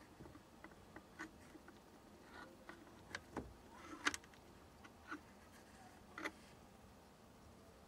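Faint handling noise: scattered small clicks and taps over quiet room tone, the sharpest about four seconds in.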